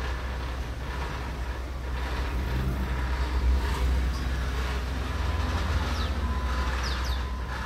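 Low, steady rumble of passing street traffic, swelling a little about halfway through, with a few short bird chirps near the end.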